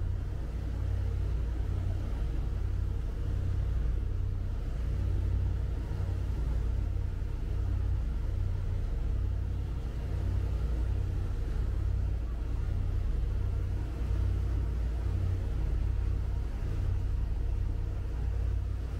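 Sea Ray Sundancer cruiser under way: a steady low rumble of the boat running, with water rushing along the hull.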